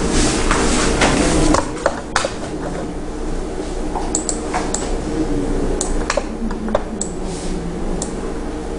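Classroom room noise: a steady hum, with a rustle in the first second and a half, then scattered light clicks and taps.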